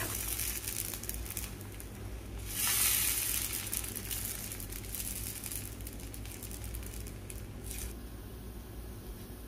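Faint kitchen food-preparation sounds: soft rustling and squishing, with a brief louder hiss about three seconds in and a shorter one near the end.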